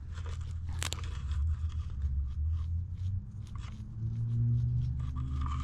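Can of expanding spray-foam insulation sputtering as foam is pushed out near the end of the can: a fast, irregular run of small crackles and pops. A steady low hum runs underneath.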